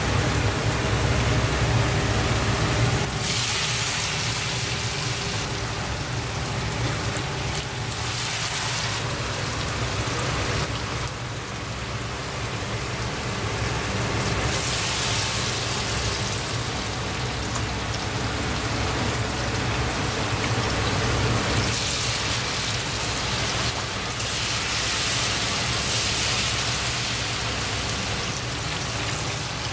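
Hot oil in a wok sizzling steadily as battered eel deep-fries, with batter being drizzled into the oil to make crispy batter bits. The hiss swells several times when fresh batter hits the oil, over a steady low hum.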